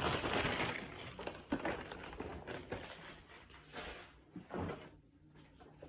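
Takeout food wrapping crinkling as it is handled and opened. The crackling is loud at first, then thins into scattered crackles and fades near the end.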